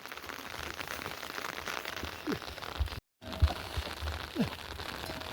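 Rain pattering steadily, a dense haze of fine drop ticks. The sound cuts out completely for a moment about three seconds in.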